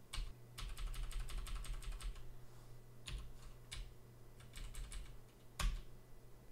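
Computer keyboard typing. A quick run of keystrokes is followed by a few single key presses, and the loudest key press comes near the end.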